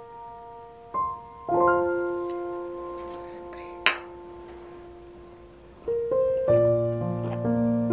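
Soft solo piano music playing slow chords. About four seconds in, two glasses of beer clink together once in a toast, with a short ring.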